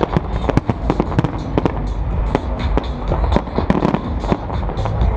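Aerial firework shells bursting in quick, irregular succession, several bangs a second, over the steady bass of dance music.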